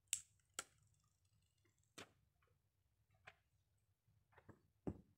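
Sparse, irregular clicks and taps, about six of them, as a Huawei Y6P smartphone is handled and its screen and case are touched with fingernails. The loudest clicks come just after the start and near the end.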